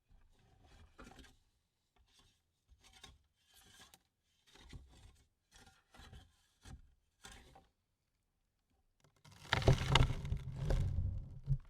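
Dirt and soil falling onto a wooden coffin lid: a string of small, soft trickles and patters, then near the end a much louder, heavier shovelful pouring and rattling onto the wood for about two seconds.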